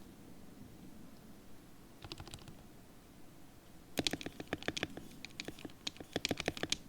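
Typing on a Gamakay K61 mechanical keyboard fitted with lubed Gateron Yellow linear switches: a few keystrokes about two seconds in, then a fast, dense run of keystrokes from about four seconds until just before the end.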